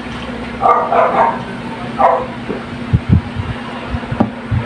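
A dog barking: a quick run of barks about a second in, then another bark about two seconds in, with a few low knocks later and a steady hum underneath.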